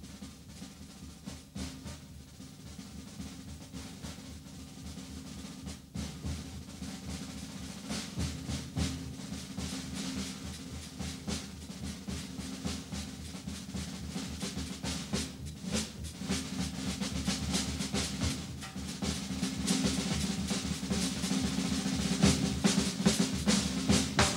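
Big-band drum solo on a jazz drum kit: fast rolls and strokes on snare and toms with bass drum and cymbal crashes. It starts fairly quiet and builds steadily louder, densest and loudest near the end.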